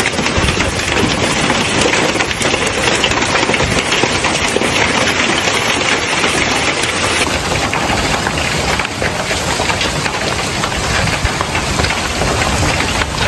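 Heavy rain pounding down in a dense, steady hiss, with a sudden change in its character about seven seconds in.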